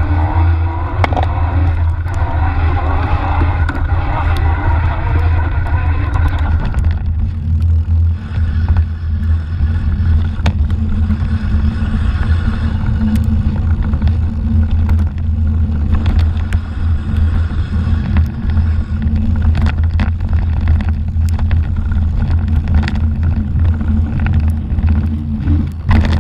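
Mountain bike riding over a rocky trail: a steady low rumble of tyre and wind on the microphone, broken by frequent sharp knocks and rattles as the bike hits bumps.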